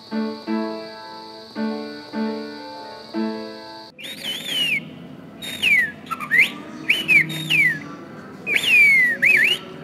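An upright piano plays a few short repeated chords. About four seconds in, a person whistles short phrases whose pitch slides down and up, in the manner of whistled speech.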